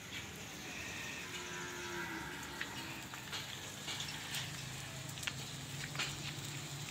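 Charcoal fire under a spit-roasted whole pig (lechon baboy), with scattered sharp crackles and pops. A faint, low, drawn-out animal call comes about a second in.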